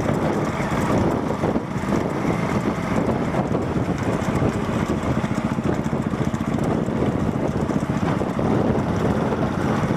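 Steady vehicle engine running, with wind noise on the microphone.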